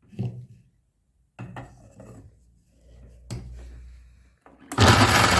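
Knocks and scraping of a steel mixer-grinder jar and utensils, then a loud rushing burst of about a second near the end as the mixer grinder is pulsed on almonds.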